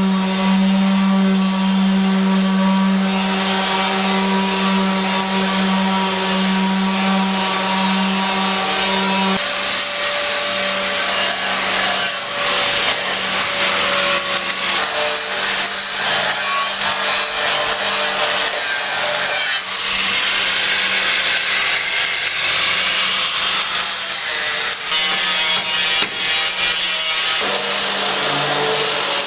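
A power tool running steadily as it saws or grinds through material, with a constant motor hum and a harsh cutting hiss. Its tone changes abruptly twice.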